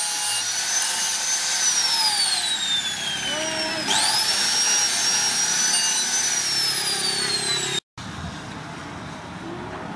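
Electric angle grinder with a sanding disc grinding a steel axe head: its high motor whine sinks in pitch as the disc bears on the steel, jumps back up about four seconds in as the load eases, then sinks again. It cuts off abruptly near the end, leaving a quieter steady background.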